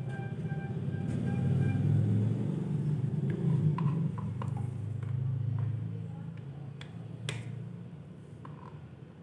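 A low rumbling hum that swells and then fades, with a few sharp clicks and knocks in the middle as a cable is handled and plugged in at a homemade miniature speaker.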